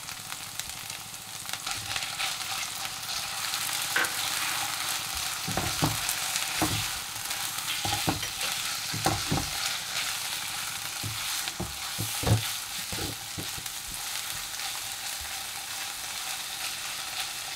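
Raw chicken strips sizzling in hot oil with onions in a nonstick kadai, stirred with a spatula that knocks and scrapes against the pan now and then, the sharpest knock about twelve seconds in. The chicken has just gone in and is starting to fry.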